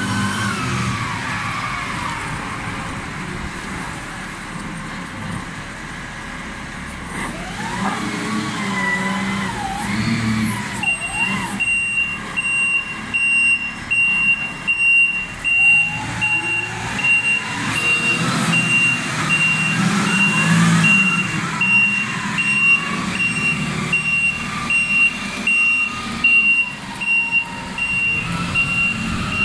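Diesel engine of an FTMH FTF 33-12 heavy forklift running and revving as the machine manoeuvres. About eleven seconds in, its reversing alarm starts beeping steadily at an even pace.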